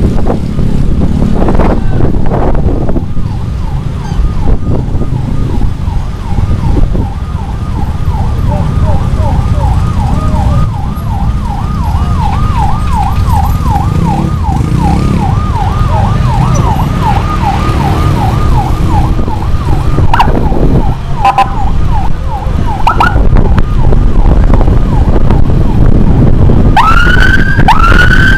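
Electronic emergency siren on a fast yelp, warbling about two to three times a second and stopping about two-thirds of the way through, then two short rising whoops near the end. Under it runs a constant rumble of motorcycle riding noise and wind.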